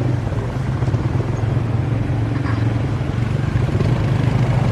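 A motor vehicle engine running steadily, a low even hum under a wash of noise.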